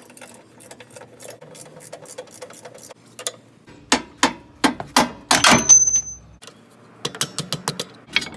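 Hand ratchet wrench clicking as it works a suspension bolt, then several louder metal clanks of tools and steel parts, one leaving a short high ring, and more clicks near the end.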